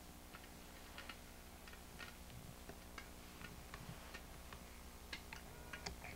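Faint, irregular light taps and clicks, about two a second, as a baby's hands pat and knock on a large red toy pig, over a steady low hum.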